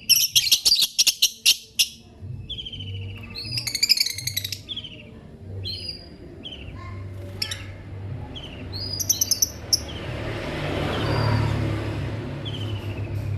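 Lovebirds chirping: loud rapid trills of shrill chirps in the first two seconds, again around four seconds and about nine seconds in, with short falling chirps in between. A rushing noise swells and fades near the end, over a low steady hum.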